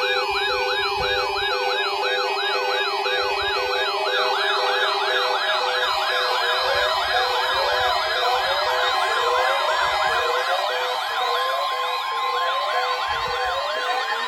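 Several electronic sirens sounding at once, layered over each other. A fast up-and-down yelp runs throughout; from about a third of the way in, slower falling sweeps join it, and a steady high tone comes in past the halfway point.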